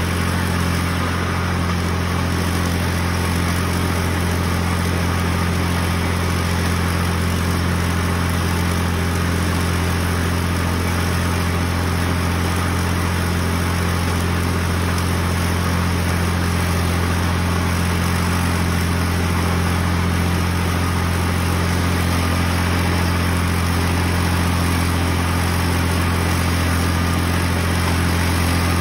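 Farm tractor's engine running steadily at constant speed while driving a belt-driven mower that cuts down strawberry plants.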